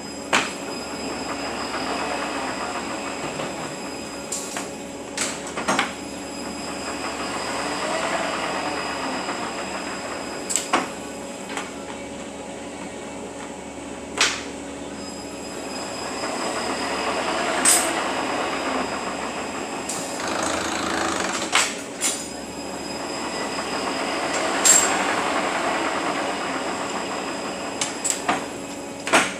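Repaired Eaton Fuller RTLO-20918B 18-speed truck transmission running on a test dyno, with a steady gear whine that swells and fades every several seconds. Sharp metallic clanks cut in about a dozen times.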